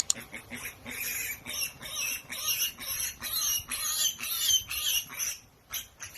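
A small animal squeaking: a rapid run of short, high-pitched squeaks that stops about five seconds in.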